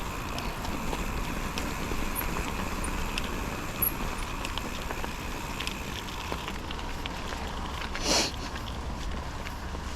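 Bicycle riding along a trail: steady rolling noise from the tyres and wind on the microphone, with scattered small clicks and one brief louder rush about eight seconds in.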